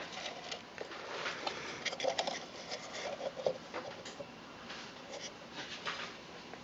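Irregular light clicks, taps and brief scrapes of an antique cuckoo clock's wooden case and wire linkages being handled and adjusted by hand.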